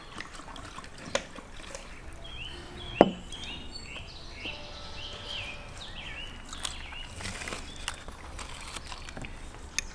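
Small birds chirping in short, repeated falling notes, over scattered clicks of forks and plates, with one sharp knock about three seconds in.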